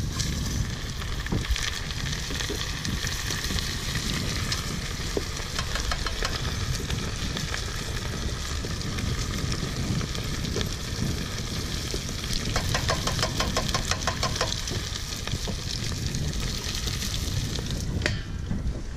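Battered fish slices frying in hot oil in a pan, a steady sizzle and crackle over a low rumble. The sizzle drops away shortly before the end as the grill lid is closed over the pan.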